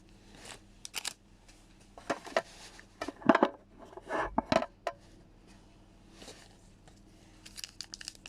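A foil Pokémon card booster pack being handled and opened: short, sharp crinkles of the wrapper in several clusters, loudest around three seconds in, then quicker, lighter crinkling near the end.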